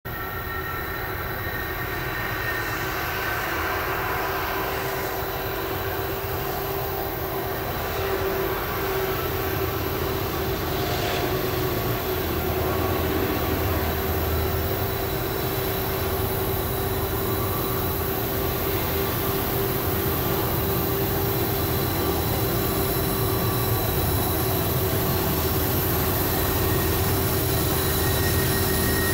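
Union Pacific diesel-electric locomotives hauling a freight train, approaching and passing: a steady low engine rumble with a constant hum that comes in about eight seconds in and holds, slowly growing louder as the train draws near.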